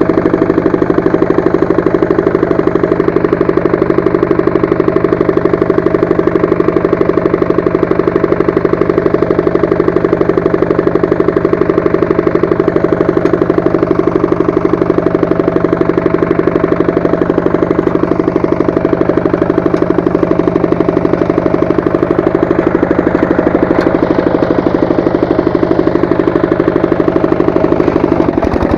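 Walk-behind tractor's engine running steadily under load while it drives a rotary tiller, with a fast, even beat; its pitch dips briefly near the end.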